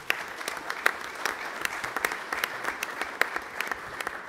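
Audience applauding: many hands clapping, starting all at once.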